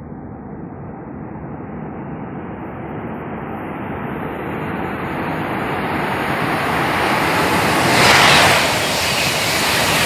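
High-speed train approaching and passing at speed: a rushing noise of wheels on rail and air that swells steadily and is loudest about eight seconds in, easing slightly, then building again at the very end.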